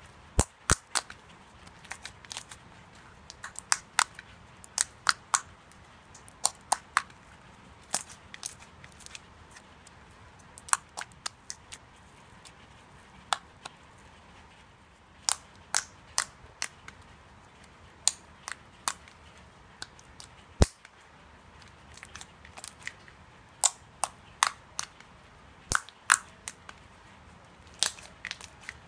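Slime being squeezed and poked by hand, giving crisp clicking pops as air pockets burst, coming irregularly, often in quick pairs or small bursts, with a couple of quieter pauses.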